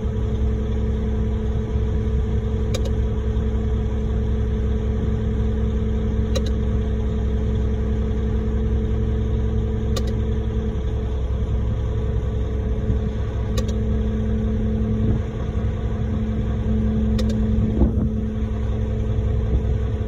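Engine idling steadily, with a faint tick about every three and a half seconds.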